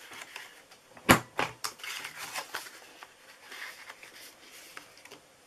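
Stampin' Up Detailed Trio Punch rounding a corner of cardstock: one sharp snap about a second in, followed by a few lighter clicks and the rustle of the card being shifted and repositioned in the punch.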